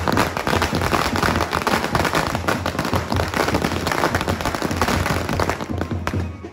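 A string of firecrackers going off: a rapid, continuous crackle of small bangs that thins out near the end.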